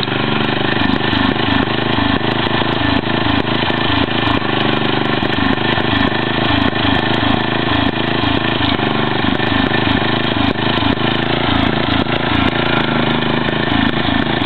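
Cub Cadet 482 lawn tractor's 11 hp Briggs & Stratton engine running steadily through dual straight pipes, the exhaust loud and unmuffled with an even, rapid throb.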